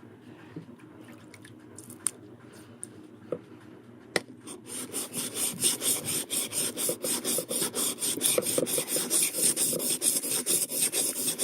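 Steel chisel blade rubbed back and forth on the fine side of a water-lubricated sharpening stone. It starts with light scraping and a few clicks, and about four and a half seconds in turns into fast, even strokes that are much louder.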